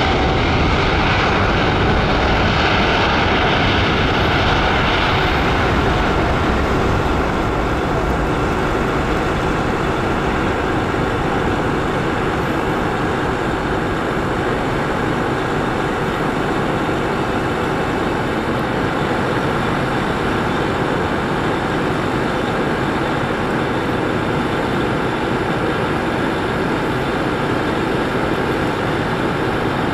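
Jet noise from a Boeing 777-300ER's GE90-115B engines at takeoff thrust, a steady loud rush through the takeoff run and climb-out. The hissing upper part of the noise eases after about six seconds, leaving a lower, even rumble.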